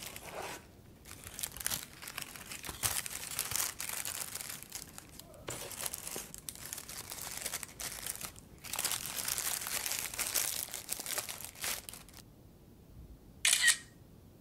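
Paper wrappers crinkling and rustling in stretches as pastries in them are handled. Near the end, one short smartphone camera shutter sound.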